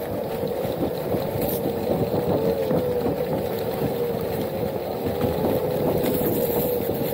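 Onewheel electric board's hub motor whining at a steady pitch that wavers slightly as speed changes, over the rumble of the tyre rolling on a rough, rocky dirt trail.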